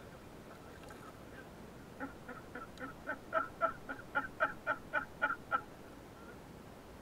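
An animal calling: a rapid series of about a dozen short, pitched notes, roughly four a second, growing louder and then stopping abruptly.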